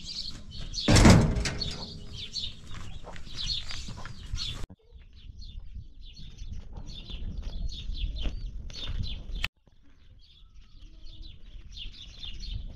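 Small birds chirping steadily and high-pitched throughout. About a second in comes one loud creaking scrape from a metal door being moved.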